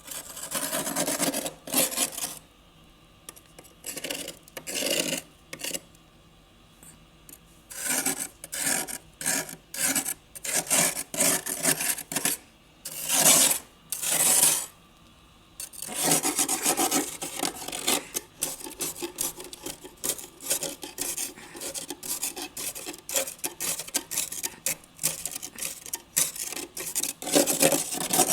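Built-up freezer frost being scraped off, a rasping scrape repeated in short strokes. The strokes come in bursts with brief pauses at first, then in a quick, almost unbroken run from about halfway through.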